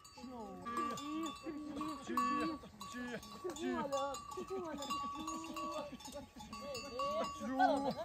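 Livestock calling over one another while animal bells clink and ring.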